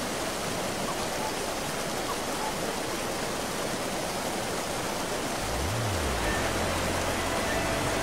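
Steady rush of a tall waterfall's falling water. About five and a half seconds in, low sustained music notes come in under it.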